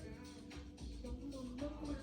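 Background music: a pop-style track with a melody line and a steady beat.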